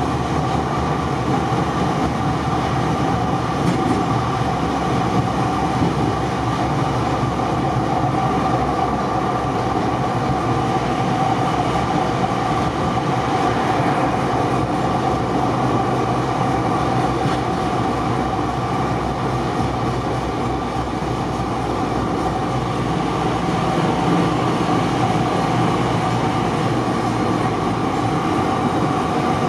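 Düwag ex-Hannover light-rail tram running along street track at about 30 km/h, heard from the driver's cab: steady rolling noise with a steady whine.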